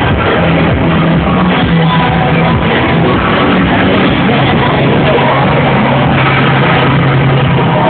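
Loud music with singing and held bass notes.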